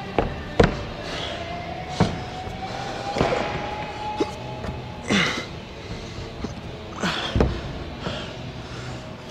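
Several sharp thuds and knocks of a climber's hands and feet striking the holds and wall of a bouldering problem, the loudest early on and again about seven seconds in, with a few short hissing bursts between them and background music throughout.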